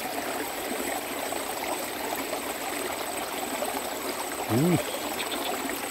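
Steady trickle of water flowing in a small ditch, with a thin, steady high-pitched tone above it. A brief voiced sound from a person comes about four and a half seconds in.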